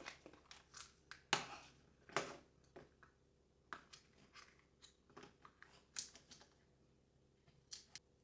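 Quiet, irregular handling noises: about a dozen small crinkles, snips and clicks, thinning out towards the end.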